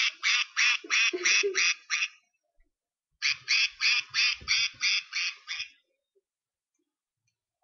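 Light-up duck keychain's sound chip quacking through its tiny speaker: two runs of quick, high, evenly spaced electronic quacks, about three a second, the second run starting about three seconds in.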